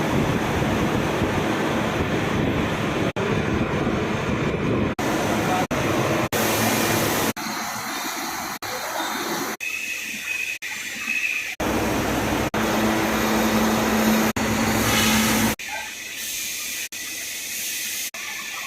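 CNC lathe machining grooves in a large shaft with coolant running: a steady rushing, hissing noise that changes abruptly many times. A steady hum runs through one stretch and a high whine through another.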